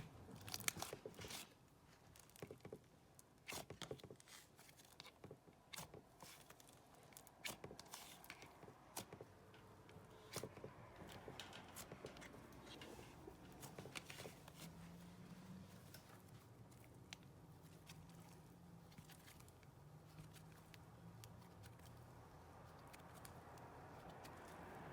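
Faint scattered clicks and soft squishes of thick butter slime being stretched and poked by hand, at a very low level.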